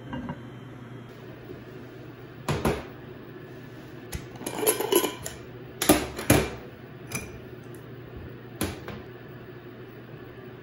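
A glass jar and its metal screw lid handled on a stainless steel counter: a series of sharp knocks and clinks, a quick cluster of them in the middle, over a steady low hum.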